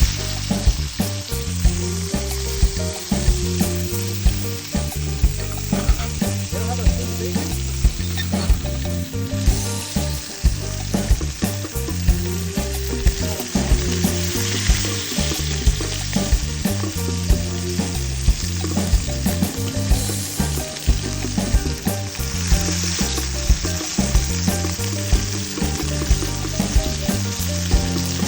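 Background music with a steady beat and a moving bass line, under an even crackling hiss.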